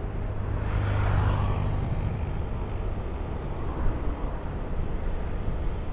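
Honda Beat scooter's small single-cylinder engine running under way, with road and wind noise at the helmet mic. Other traffic swells past about a second in.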